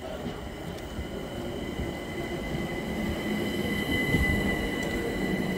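London Overground electric train running on the rails with a steady high-pitched wheel squeal over a low rumble, growing louder as it approaches.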